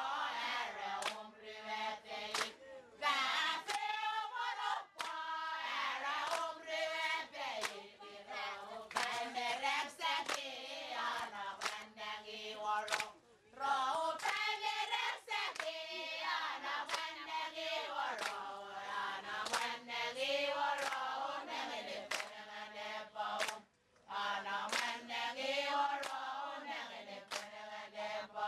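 A seated group, many of them women, chanting together in unison, accompanied by hand claps and slaps. The chant breaks off briefly about thirteen seconds in and again near twenty-four seconds.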